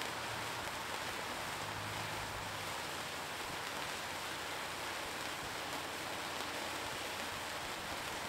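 Several sparklers burning at once on a hanging rotating sparkler frame, a steady hiss.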